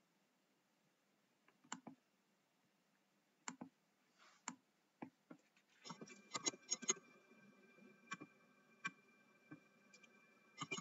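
Faint computer mouse clicks, single ones a second or so apart, then a quick run of keyboard key presses about six seconds in as times are typed, followed by a few more clicks. A faint steady tone starts with the key presses.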